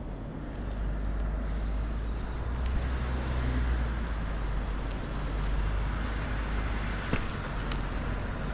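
Steady low engine rumble, with a few sharp clicks about seven seconds in.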